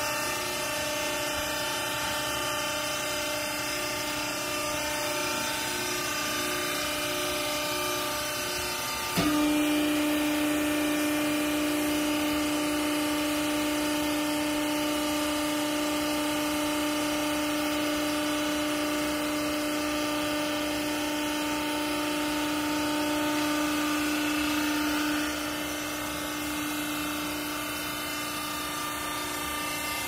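Hydraulic pump unit of a vertical used-clothes baler running with a steady hum. About nine seconds in a click, then the hum turns louder with one strong steady tone as the ram goes under load pressing the clothes, easing back a few seconds before the end.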